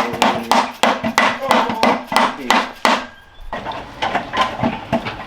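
Rapid, evenly spaced hammer blows, about four a second, struck to drive the engine onto the transmission's input shaft, which is not yet fully seated. The blows stop about three seconds in, and a few lighter knocks follow.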